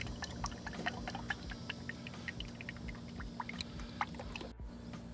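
Motor oil pouring from a 5-quart plastic jug through a funnel into a car engine's oil fill, with many short, irregular glugs.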